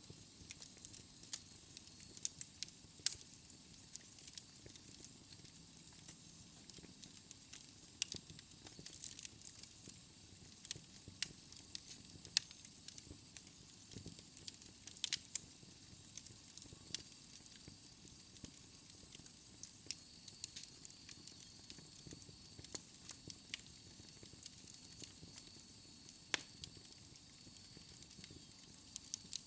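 Fire crackling: irregular sharp pops and snaps, several a second at times, over a soft steady hiss.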